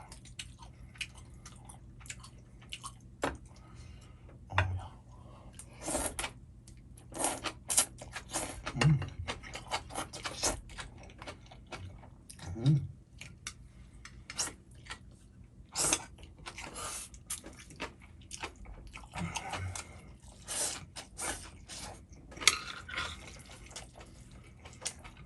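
Close-up eating sounds: chewing Jjapaghetti noodles, with irregular clicks and scrapes of cutlery against the bowl.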